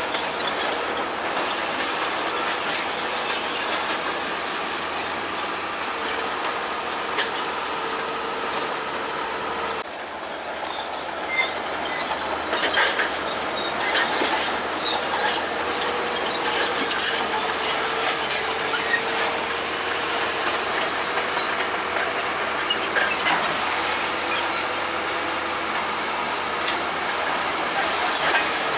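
Crawler bulldozer working: its engine running steadily while the steel tracks clank and rattle, with a continuous squealing whine from the track running gear.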